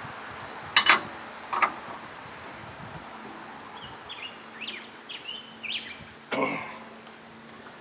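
Two sharp metal clicks in the first two seconds from hand-tool work on a bandsaw mill's blade-tensioning hardware, then a small bird chirping several times, and a short rough burst near the end.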